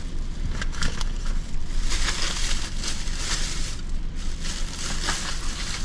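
Plastic bag crinkling and rustling irregularly as someone rummages through it by hand for a missing medicine, over a steady low hum.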